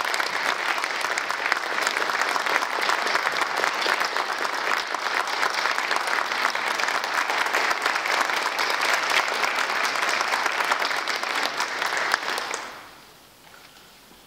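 Audience applauding steadily as the performers take the stage, then dying away about twelve and a half seconds in.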